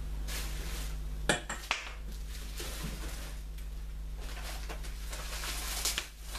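Metal parts of a rear-door bike carrier knocking and clinking as they are handled and set down, with two sharp knocks about a second in, followed by rustling of plastic wrapping.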